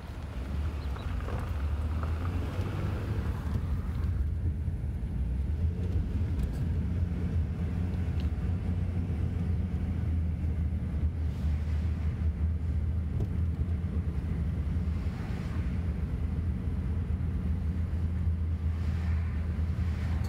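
Car cabin noise while driving: a steady low engine and road rumble, growing louder over the first couple of seconds and then holding even.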